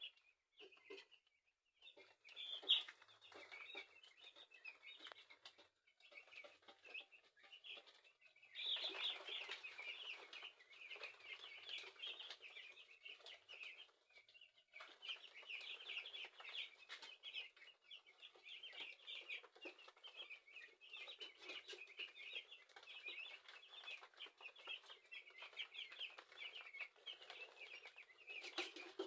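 A brood of week-old chicks peeping, many short high cheeps overlapping almost without pause, with a few brief lulls.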